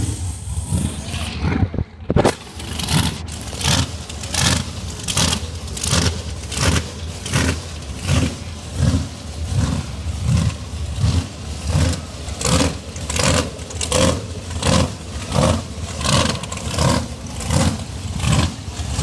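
Footsteps on asphalt picked up by a handheld phone being carried, a regular scuffing step about every two-thirds of a second that starts about two seconds in, over a low steady rumble.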